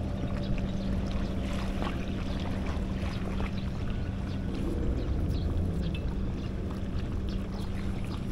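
A steady, low machine hum with one constant pitch, and faint scattered clicks over it.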